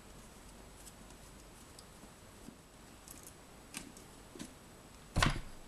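A small screwdriver backing tiny screws out of a thin metal frame, with a few faint metallic clicks and ticks. A single louder knock comes near the end.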